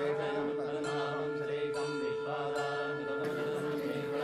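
A voice chanting a Hindu mantra over a steady held drone tone.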